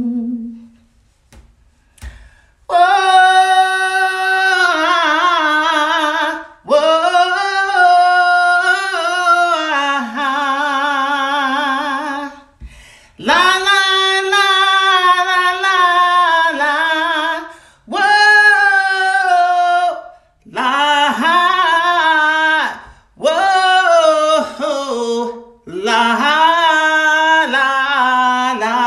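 A woman singing unaccompanied in long held phrases with a strong vibrato, pausing briefly for breath between them, starting about two seconds in after a short pause.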